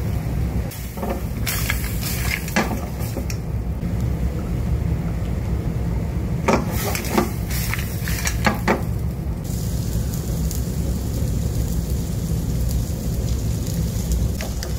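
Seafood sauce boiling hard in a steel frying pan over a gas flame, with a steady low rumble underneath. A few clusters of sharp clicks and crackles come about two seconds in and again around seven to nine seconds. From about ten seconds in a brighter sizzling hiss sets in.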